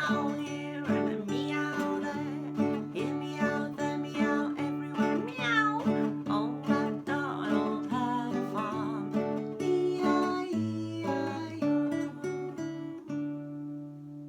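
Acoustic guitar strumming chords under a voice making high, sliding meow-like animal calls as part of a children's song. About 13 seconds in, the voice stops and the guitar's last chord rings on and fades.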